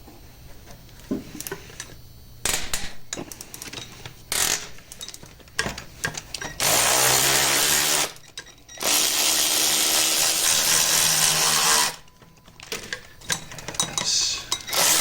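A power tool run in three bursts of one to three seconds, spinning out bolts on a Chevy LS 5.3 engine being torn down. Clicks and knocks of tools being handled come before it.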